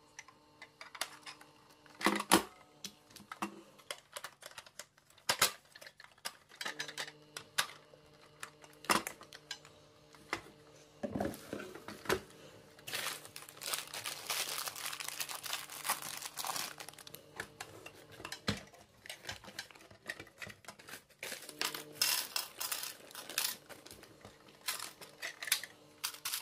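Hard plastic toy parts clicking, knocking and rattling as they are handled and snapped together, with a stretch of plastic wrapping crinkling about halfway through.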